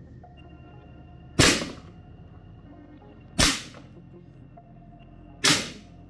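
Umarex HK416 T4E .43-calibre CO2 rifle firing three single shots about two seconds apart, each a sharp crack with a short echo trailing off.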